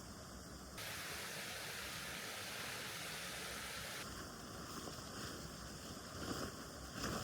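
Steady hiss-like rushing noise that cuts in suddenly about a second in and stops just as suddenly about three seconds later, over a fainter steady background, with a couple of soft knocks near the end.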